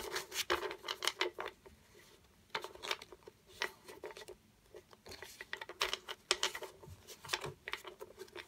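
A stack of Pokémon trading cards being handled and squared up by hand: several bursts of quick papery clicks, taps and slides as the card edges knock and rub together, with short pauses between bursts.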